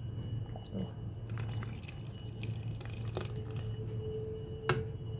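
Light clinks and taps of a utensil against a cooking pot, with a sharper knock about three seconds in that leaves a short ringing tone and another knock near the end, over a steady low hum.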